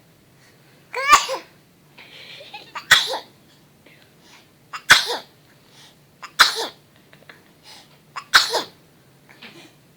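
A baby sneezing five times in a row, roughly one sneeze every one and a half to two seconds.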